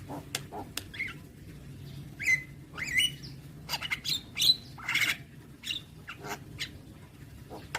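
Javan myna singing a rapid, varied song of short harsh squawks, clicks and whistles, with a couple of rising whistled glides a little past two seconds in and near three seconds. A faint steady low hum sits underneath.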